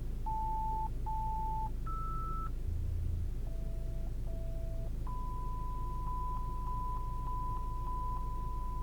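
Test tones played through a Skoda Octavia's factory Bolero audio system: short steady beeps at changing pitches (two, then a higher one, then two lower), followed about five seconds in by one long steady tone with small clicks in it. A low steady hum lies underneath.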